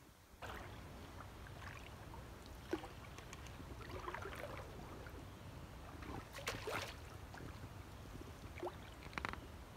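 A canoe being paddled through flooded timber: soft paddle splashes and drips, with scattered knocks against the hull over a low steady rumble. There is one sharp knock just under three seconds in and louder splashing knocks a little after six and near nine seconds.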